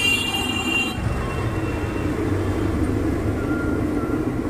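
Street ambience with a steady low rumble of traffic. A high-pitched ringing tone stops abruptly about a second in.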